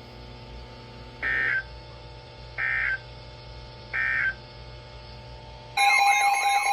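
Three short bursts of EAS end-of-message data tones, the squawking digital 'NNNN' code that closes a NOAA Weather Radio warning. Each lasts about a third of a second, a little over a second apart, over a steady low hum. Near the end a louder, wavering siren-like alert tone starts.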